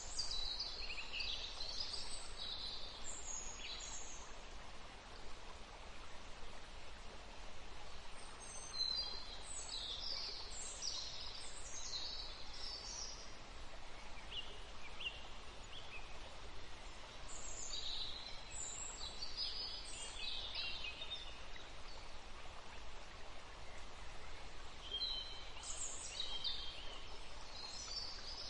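Birds chirping in short spells of quick high calls every several seconds, over a steady faint hiss.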